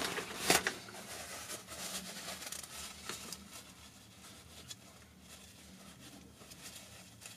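Handling noises and faint rustling as excess red Loctite is wiped off a Headshok damper part, with a sharp click about half a second in. The noises die down after about three seconds.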